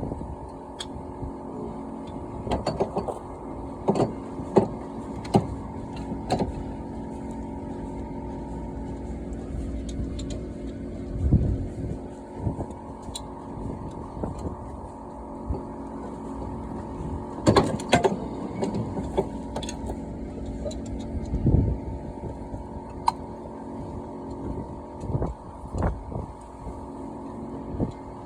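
Scattered metallic clicks, clinks and knocks of hand tools and brake and hub parts being handled during Jeep XJ front hub and brake work, with a few heavier thumps, over a steady low hum.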